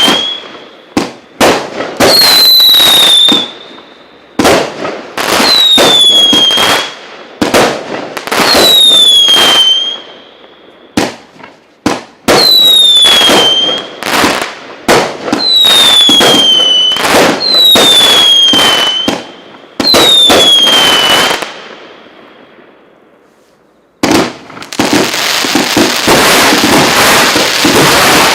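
Fireworks going off: shots about every two seconds, each with a whistle falling in pitch and loud bangs. After a short lull about 22 s in, a dense, rapid crackle of many small bangs.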